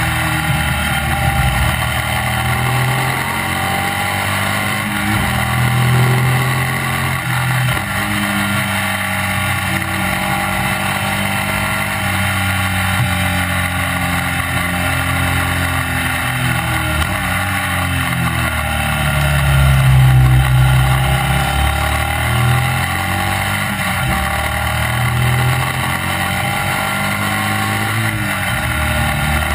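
Classic racing sidecar outfit's engine running hard at speed, its pitch climbing and falling again and again with throttle and gear changes; loudest about twenty seconds in.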